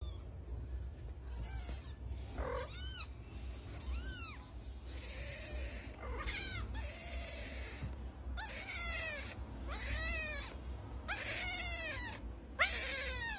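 Young kitten meowing over and over, about ten short cries, several of them harsh and hissy, protesting at being held up.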